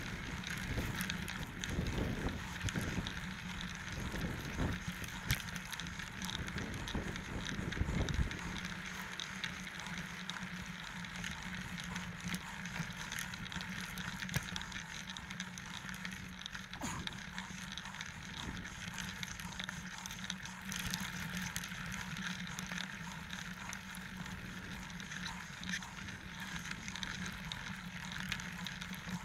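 29er mountain bike being ridden down a dirt trail: tyres on dirt and loose stones with the bike rattling and clicking over the bumps. Gusts of wind buffet the microphone for the first several seconds.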